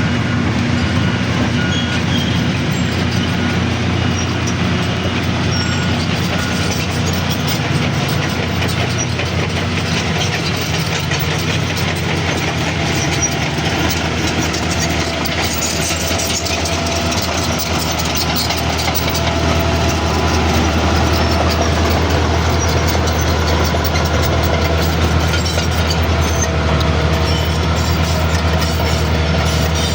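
Diesel engine of heavy earthmoving machinery running steadily with a deep drone, growing a little louder about two-thirds of the way through.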